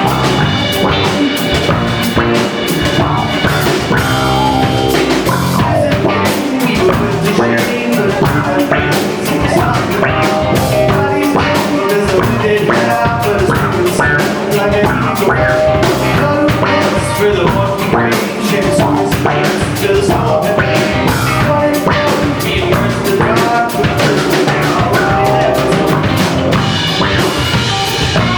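A rock band playing live, loud and continuous, with a drum kit keeping a steady beat under guitars.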